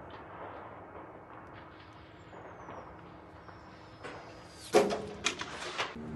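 Low background hiss with a faint high whistle slowly falling in pitch, then a loud sharp bang nearly five seconds in, followed by three quicker sharp bangs: air-defence fire against an incoming drone.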